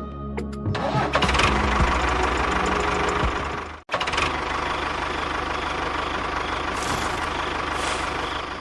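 A motor running steadily with a dense, rattling hum, cut off for an instant just under four seconds in.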